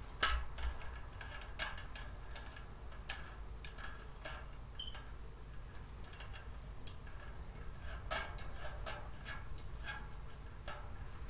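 Scattered sharp clicks and light knocks of storage-cart parts being handled as the legs are screwed on, loudest just after the start and again about eight seconds in.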